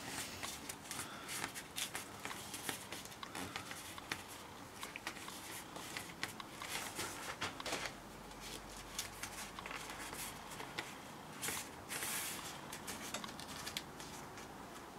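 Faint rustling and crackling of sticky double-sided tape being pressed and smoothed by hand along a sword core, with scattered small clicks and a brief louder rustle about three-quarters of the way through.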